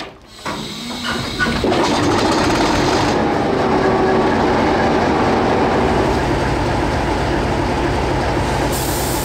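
NZR DE-class diesel-electric locomotive's engine building up over the first couple of seconds, then running loud and steady with dark exhaust smoke. A high hiss joins near the end.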